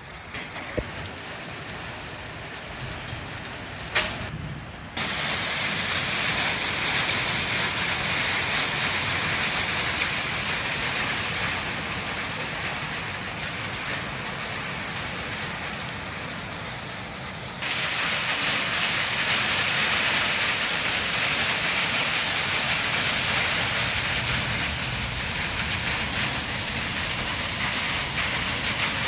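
Heavy rain falling in a steady hiss. It steps abruptly louder about five seconds in and again about eighteen seconds in, with a sharp click just before the first step.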